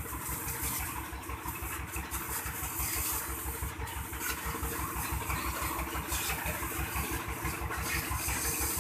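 Massey Ferguson 260 tractor's diesel engine idling steadily, with an even, low pulsing beat.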